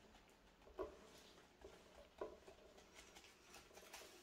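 Near silence with a few faint soft taps of a gloved hand patting plastic wrap down onto wet acrylic paint on a canvas.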